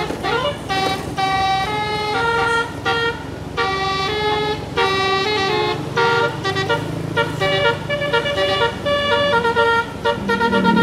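Tourist bus's multi-tone telolet (basuri) air horn playing a quick tune of short stepped notes, some held a little longer, over the low running of the bus engine.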